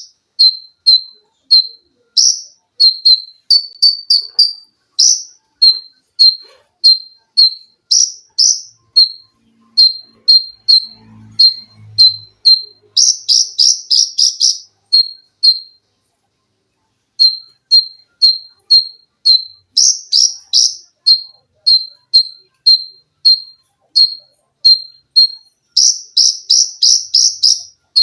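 A konin, a small sunbird, singing: a steady string of short, high chips about two a second, broken several times by quick runs of rising notes (the rapid 'sewing machine' bursts). The song stops for about a second and a half midway, then resumes.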